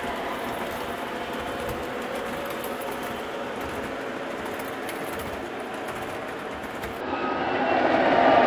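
O gauge model train of auto rack cars rolling around curved three-rail track: a steady rolling clatter of wheels on rail. About seven seconds in it gives way to a louder, rising sound as a model Union Pacific diesel locomotive approaches.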